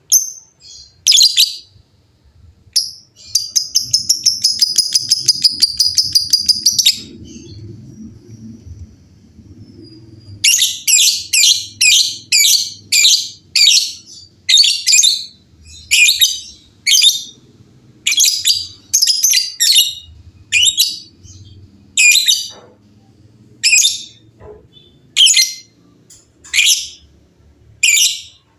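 Lovebirds calling. About three seconds in comes a rapid chattering trill of about four seconds: the long 'ngekek' chatter that hobbyists prize. After a short lull, a run of sharp, shrill calls follows, about two a second at first and spacing out to about one a second near the end.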